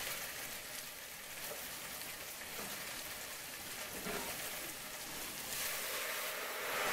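Cauliflower frying in a pan with butter and garlic: a steady crackling sizzle that grows louder near the end.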